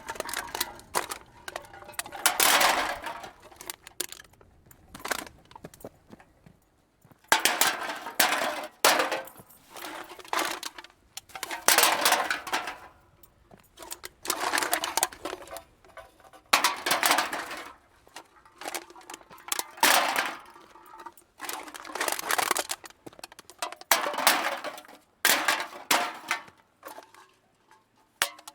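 Hard objects clattering and clinking together in repeated bursts of about a second each, one every two to three seconds.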